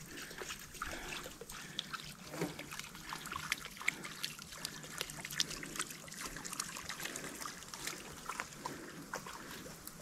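Water trickling, with many small irregular drips and splashes.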